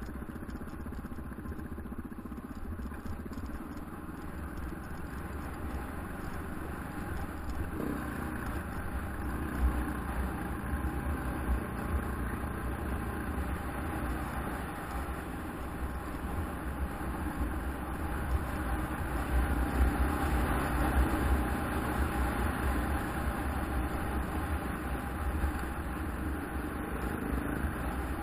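KTM 690 Enduro's single-cylinder engine running as the motorcycle rides along a dirt trail, slowly getting louder, with a few brief knocks.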